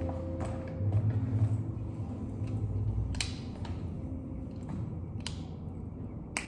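A low, steady room hum broken by a few sharp clicks and creaks, spaced a second or two apart.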